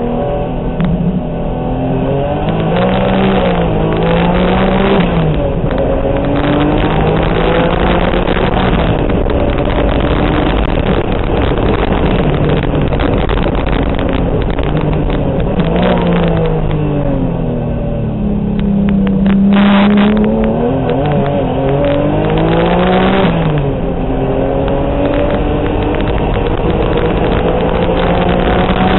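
Turbocharged Acura NSX V6 race engine heard from inside the cockpit at race pace. The engine note climbs as it accelerates and drops at each gearshift and lift for corners, rising and falling several times over steady road and wind noise.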